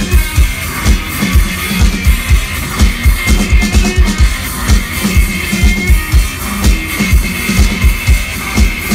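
Live rock band playing an instrumental passage: electric guitar over a drum kit, with a steady, driving kick-drum beat.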